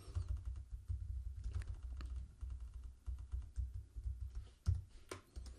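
Typing on a computer keyboard: a quick run of key clicks while a line of code is edited, with two sharper clicks near the end.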